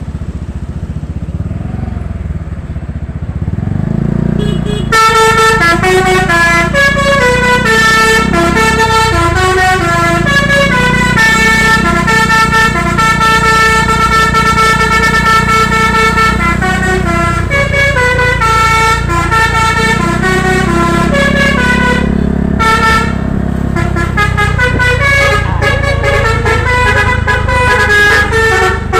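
Bus's telolet basuri musical horn playing a melody of stepping notes over the steady rumble of the bus engine. The horn starts about five seconds in and plays almost without pause, with a short break about three-quarters of the way through.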